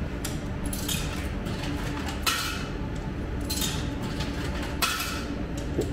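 Coins clinking into a retro toast-sandwich vending machine: about five short metallic clinks, a second or so apart, over a low steady hum.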